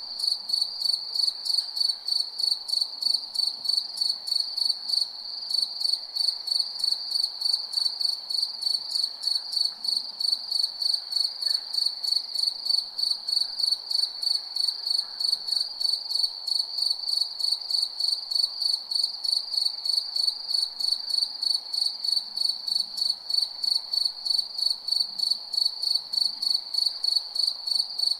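Crickets chirping: one loud, high-pitched chirp repeats steadily about three times a second, over a faint background.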